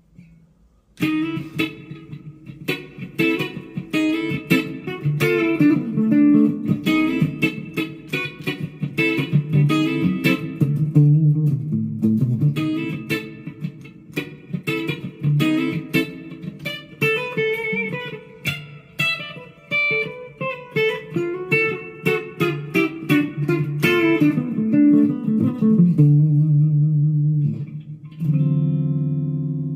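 Leo Jaymz SG-copy electric guitar with two humbuckers, played amplified as a tone demo of its pickup settings: picked single notes and short runs start about a second in. It ends on a chord struck and left ringing.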